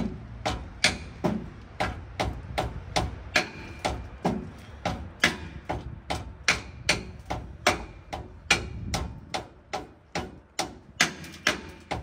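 Hand hammer blows on metal, a steady rhythm of about two to three strikes a second, each with a brief ring.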